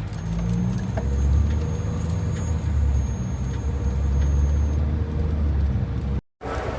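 Low, steady rumble of a vehicle on the move, with a faint high steady whine over it for about the first five seconds; it cuts off abruptly near the end.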